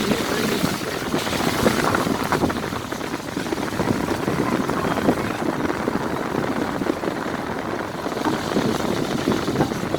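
Steady rushing noise of a car driving slowly, with wind buffeting the microphone.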